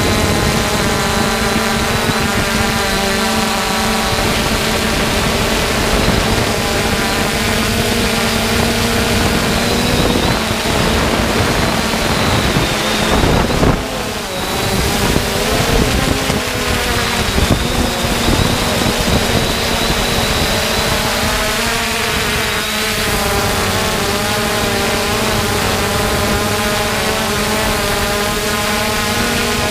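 3DR Solo quadcopter's electric motors and propellers humming steadily, their several tones drifting up and down in pitch as the drone holds and adjusts its flight, with wind noise on the onboard camera's microphone. About halfway through the hum briefly drops and a rush of noise passes.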